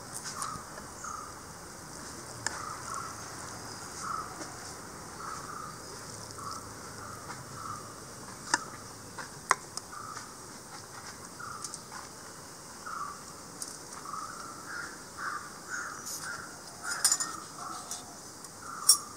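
Birds calling in short repeated notes over a steady high hiss of insects. A few sharp clicks of serving spoons against plates and dishes are scattered through.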